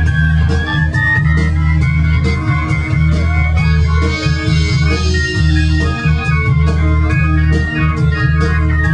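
Live band music: held keyboard chords over a steady low bass, with a regular beat of sharp percussion strokes.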